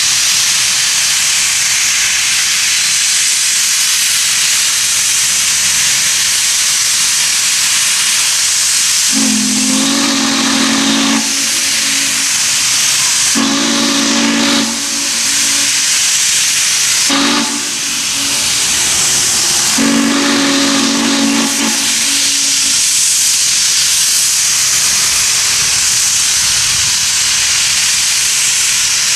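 Norfolk and Western 611, a J-class 4-8-4 steam locomotive, sounding its chime whistle in four blasts: long, long, short, long, the grade-crossing signal. A steady loud hiss runs under it.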